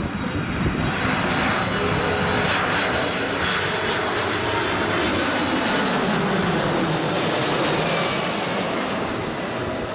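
Boeing 747-400's four turbofan engines on final approach as the jet passes low overhead: a loud, steady rush with a high whine, and tones that slide down in pitch as it goes over.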